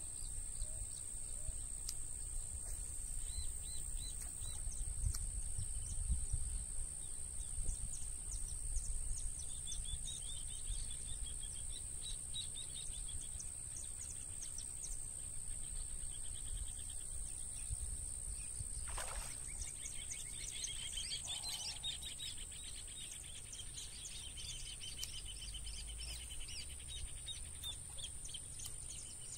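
Open-country ambience: birds chirping in quick repeated calls, busiest in the second half, over a steady high insect drone and a low rumble of wind on the microphone.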